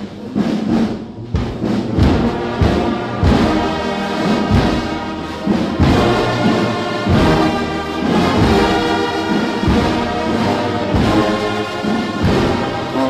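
Brass band music: brass instruments playing a sustained tune over steady drum beats.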